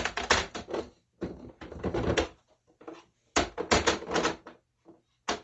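Handling noise from hard plastic CGC comic slabs being moved and shuffled: clusters of quick clicks and clacks in four bursts.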